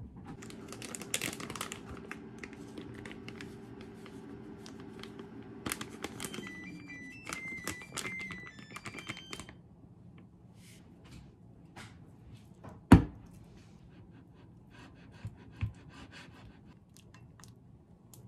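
Microwave oven heating at 600 W with a steady hum that winds down after about six seconds, followed by a short run of electronic beeps signalling the end of heating and the click of its door. Later a plastic bag rustles and there is a single loud thump.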